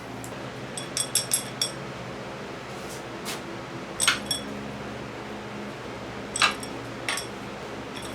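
Hand tools clinking on the head bolts of a Cummins 4BT diesel being loosened: a quick run of about five ringing metallic clicks about a second in, then scattered single clinks.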